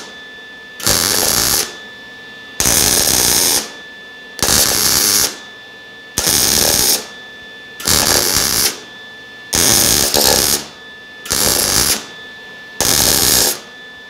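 MIG welder laying stitch welds on a steel exhaust pipe: eight crackling arc bursts, each about a second long, with pauses of under a second between them. The pipe is getting hot and burning through a little.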